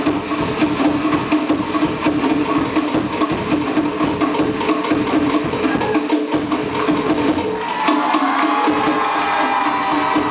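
Fast Polynesian drumming, with rapid wooden strokes of slit log drums driving a steady rhythm.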